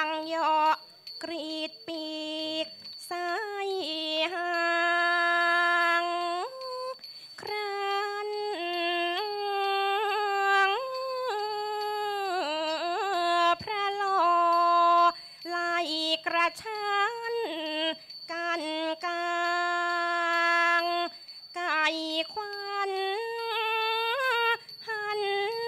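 A woman singing a slow Thai classical vocal line for a dance-drama, with long held notes joined by sliding, wavering ornaments and short breaks between phrases.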